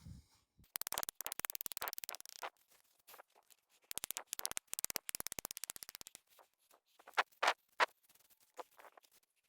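Scraping and clicking of tools working broken concrete: two runs of rapid, irregular scratchy clicks, then a few separate sharp knocks near the end.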